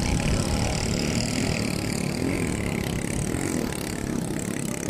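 Racing boat engines running steadily, growing slightly quieter near the end.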